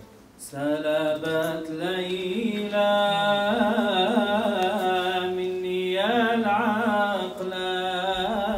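A man's solo voice singing an Arabic Sufi devotional song (inshad) into a microphone, in long drawn-out melismatic phrases with wavering ornamented turns on held notes.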